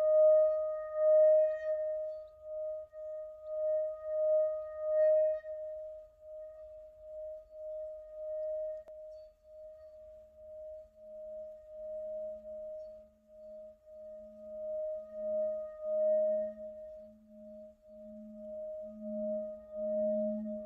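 Hand-held metal singing bowl sung by circling a padded mallet around its rim: a steady ringing tone that wavers in a slow pulse, with a second, lower tone joining about halfway through and growing louder toward the end.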